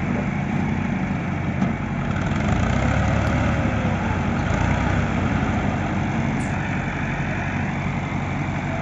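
Farm tractor diesel engines running steadily under heavy load, one tractor towing another that pulls a trolley piled with sugarcane.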